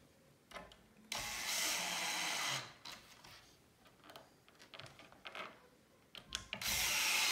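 Cordless drill driving screws into pre-drilled pocket holes, in two bursts: one of about a second and a half, and a second starting near the end.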